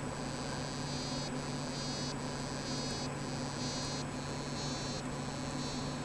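Male African dwarf frog singing underwater: a high buzzing call in a run of short phrases, each under a second, some a steady buzz and some a rapid ticking trill.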